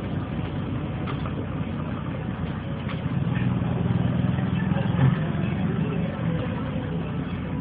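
City bus engine running steadily at low revs, heard from inside the bus as it moves slowly down the hill road. The hum grows louder for about two seconds in the middle and ends in a short thump.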